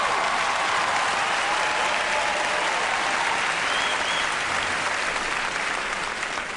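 Large audience applauding, the clapping dying away near the end.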